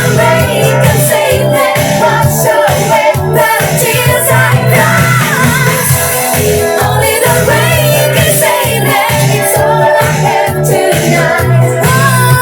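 Pop song playing, with sung vocals over a steady, pulsing bass beat.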